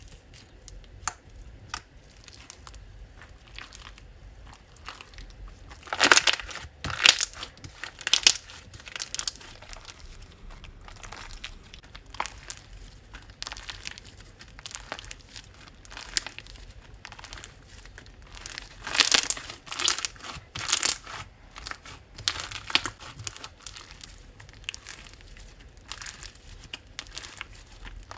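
Slime being squeezed and pressed by hand, giving a run of crackly clicks and pops, with louder, denser clusters about six seconds in and again around nineteen seconds.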